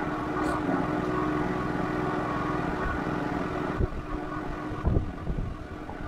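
Wind buffeting the microphone outdoors: an uneven low rumble of gusts, with two sharper thumps of wind hitting the mic in the second half.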